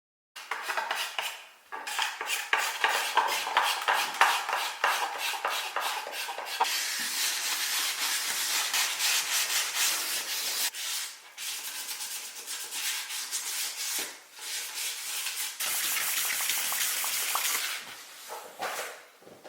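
Hand abrasion on wood: rapid back-and-forth scraping strokes starting about half a second in, then steadier sanding-like rubbing for the rest, broken by a few short pauses.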